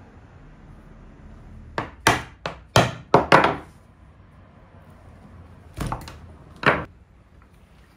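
Sharp wooden knocks from a round wooden table top being handled on a workbench: about six in quick succession, then two more a couple of seconds later.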